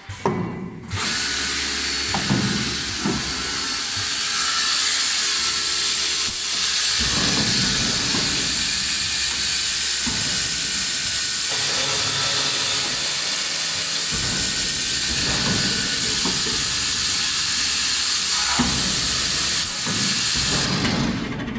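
IMACO HIRTZ FK 800L CNC drilling machine running, with a loud steady hiss over a lower machine sound that changes every few seconds.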